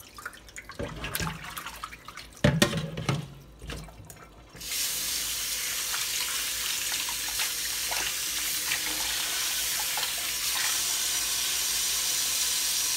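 A raw whole chicken being handled and rinsed in a bowl of water in a stainless steel sink, with splashing and a sharp knock about two and a half seconds in. Then, from about four and a half seconds in, the kitchen faucet runs steadily, its stream splashing onto the chicken and the bowl.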